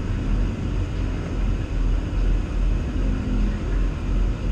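Semi truck's Detroit Diesel engine running at low speed, heard from inside the cab as a steady low rumble.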